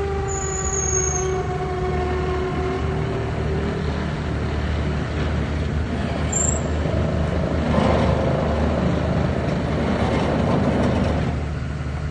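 Vögele asphalt paver working: a steady low engine drone with a whine that slowly drops in pitch over the first few seconds, then a louder rushing, grinding stretch of machine noise in the second half.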